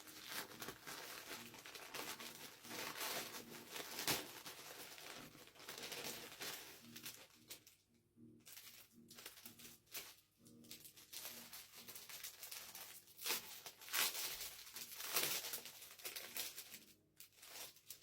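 Plastic packaging being crinkled and torn open by hand, in fitful rustling bursts with a few sharper rips.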